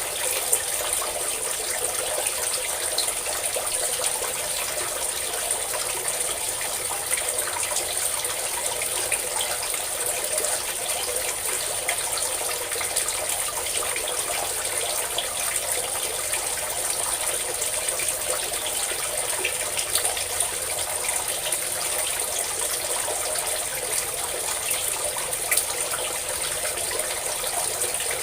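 A stream of water pouring and splashing steadily, without a break or a change.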